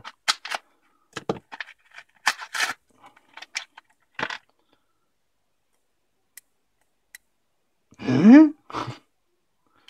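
Scissors snipping and plastic-and-card packaging crackling and tearing as it is cut open, a run of sharp clicks and crinkles over the first four seconds. Near the end a short rising vocal 'hm', the loudest sound here.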